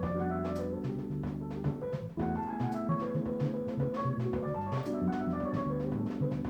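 Live jazz quartet of saxophone, keys, double bass and drums playing: fast runs of short notes over held chords and a moving bass line, with steady cymbal and drum strokes.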